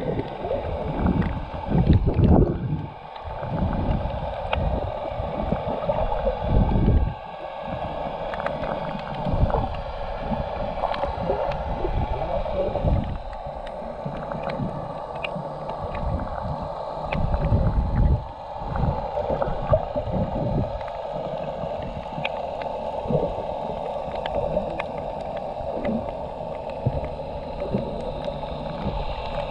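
Muffled underwater sound from a submerged GoPro Hero 7: a steady watery hiss with low rumbling surges as water moves around the camera, loudest a few times, and scattered faint clicks.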